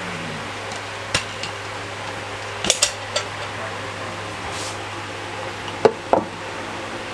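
Metal clicks and knocks as an electric grinder's detachable jar and lid are handled and fitted. There is one sharp click about a second in, a quick cluster near three seconds and a pair near six seconds, over a steady low hum.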